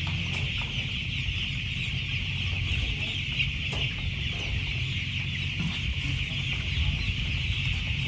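Dense, steady peeping and chirping chorus of thousands of young broiler chickens packed in a poultry house, over a low steady hum from the house's ventilation fans.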